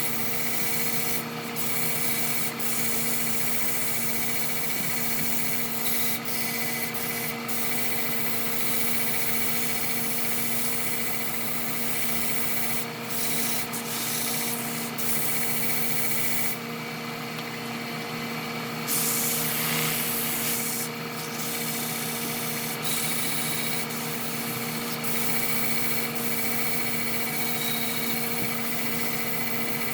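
Wood lathe running with a steady hum while sandpaper is pressed against the spinning wooden vase: a continuous rubbing hiss that drops away for a couple of seconds about two-thirds of the way through.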